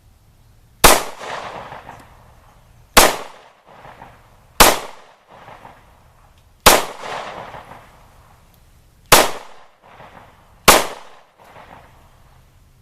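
Six shots from a Ruger LC9 9mm compact pistol fired one at a time at uneven intervals of one and a half to two and a half seconds, each sharp crack trailing off in a brief echo.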